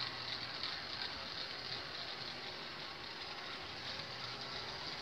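Life-Like HO scale 0-4-0 saddle tank steam switcher running along the track while hauling a string of freight cars: a steady mechanical whir of the small motor and gears with fine rapid clicking from the wheels and cars.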